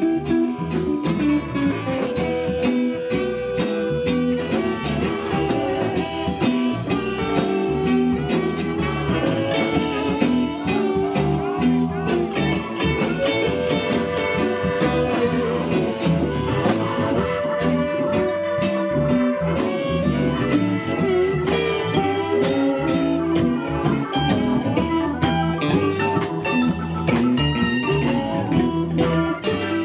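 Live blues band playing an instrumental passage: electric guitars, bass guitar and drum kit, with a harmonica blown into a vocal microphone and some long held notes.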